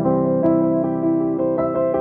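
Background music: a soft keyboard piece of sustained piano-like notes and chords, changing every half second or so.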